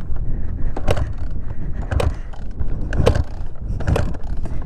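Dirt bike rolling along a gravel track with its engine stalled: tyres crunching over loose dirt, with knocks and rattles from the bike about once a second and no engine note.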